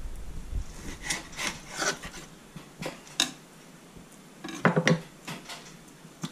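Chef's knife cutting raw partridge breast on a wooden chopping board while sinew is trimmed from the fillets: a string of short scrapes and taps of the blade against the board, with a denser cluster about four and a half seconds in.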